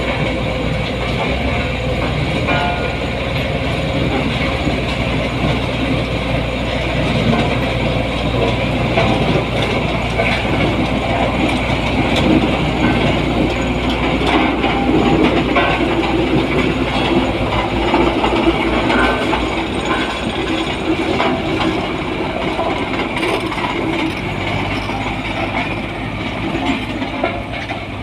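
A compactor running: a steady engine hum under a continuous rattling, clattering mechanical noise.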